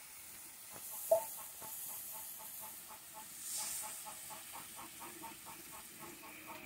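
Curry masala sizzling and hissing in a metal wok over a wood fire, the hiss swelling about three and a half seconds in. One sharp clink of metal about a second in.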